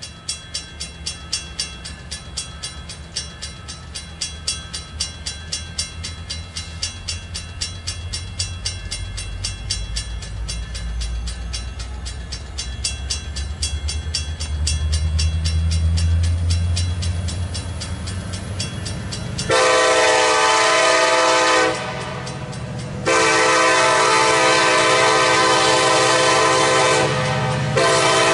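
Grade-crossing bell dinging rapidly over the low rumble of an EMD SD70M-2 diesel locomotive, the rumble building as the train throttles up and pulls away. The locomotive's air horn then blows for the crossing: a long blast, a longer one, and a third beginning near the end.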